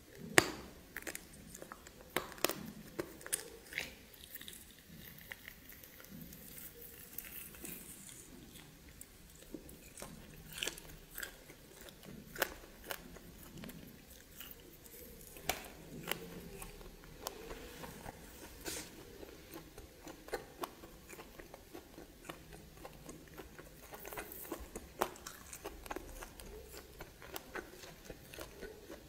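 A person biting and chewing steamed snake, with irregular sharp clicks and crunches throughout and the loudest snap about half a second in.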